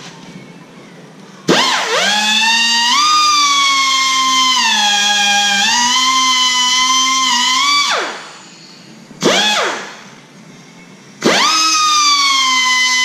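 Electric angle grinder working on steel suspension parts: it spins up to a high whine about a second and a half in, its pitch sagging as it is pressed onto the metal, and winds down around eight seconds. A short blip follows near nine seconds, then it spins up again near eleven seconds and keeps running.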